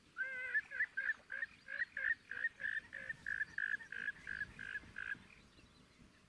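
An animal calling: a run of about fifteen short, evenly spaced notes, roughly three a second, opening with a few warbling notes and stopping about five seconds in.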